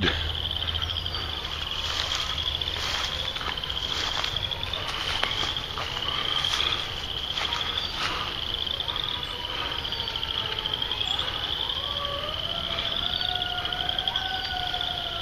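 Insects trilling steadily in a high, fast-pulsing chorus. Distant fire-truck sirens wail faintly, slowly rising and falling, in the second half.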